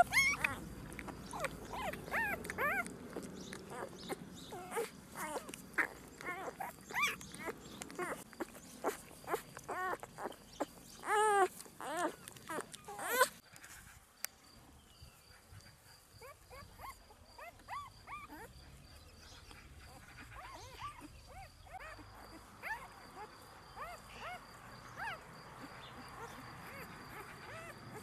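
Newborn puppies, their eyes not yet open, whimpering and squealing over and over in short, high cries that rise and fall. The cries are loudest and closest together in the first half, then fainter and sparser after about halfway.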